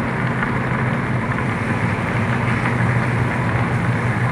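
Steady car engine hum and road noise heard from inside the cabin of a moving car.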